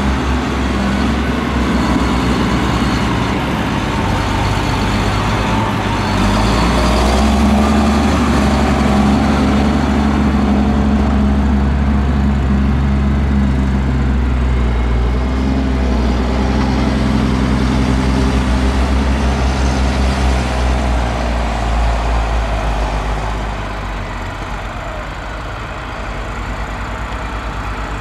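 Claas Xerion 3800 tractor's diesel engine working as it pushes chopped maize across a silage clamp. It is louder through the middle and eases off a little near the end.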